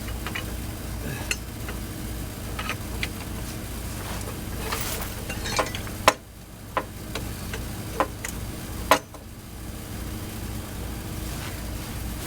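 Scattered metallic clinks and knocks from hand work on the vehicle, the two sharpest about six and nine seconds in, over a steady low hum.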